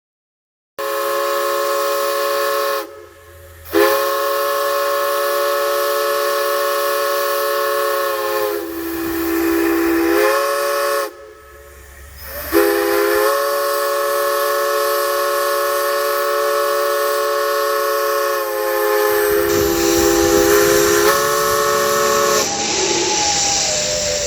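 Multi-chime steam whistle sounding a chord of several notes at once, blown in long blasts with two short breaks, near 3 s and near 11 s. The pitch sags for a couple of seconds as the valve is eased. Near the end a louder hiss of steam rises under wavering tones.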